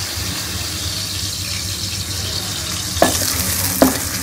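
Sliced onions sizzling in hot ghee in a karahi. From about three seconds in, a wooden spoon stirs them, knocking against the pan several times.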